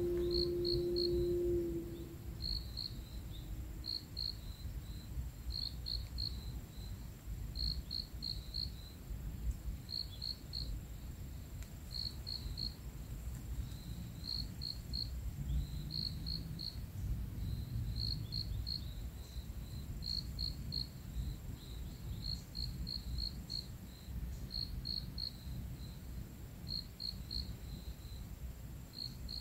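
Insect chirping in short pulsed groups of three or four notes, about one group a second, over a low rumble of background noise. A held low tone fades out about two seconds in.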